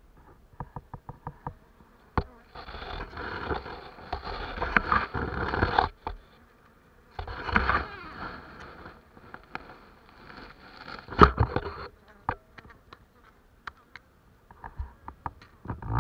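Honey bees buzzing as they fly in and out close past the microphone at a hive entrance, swelling and fading with each pass, loudest about three to six seconds in, again around eight and near eleven seconds. Scattered short sharp ticks run among the buzzing.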